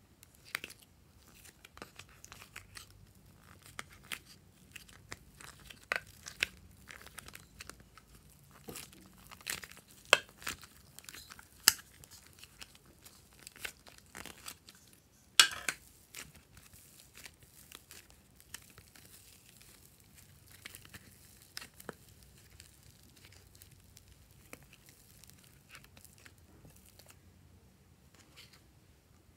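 Soft modelling clay being pulled out of a clear plastic compartment tray by hand: irregular crinkling and tearing with sharp plastic clicks, the loudest about ten, twelve and fifteen seconds in.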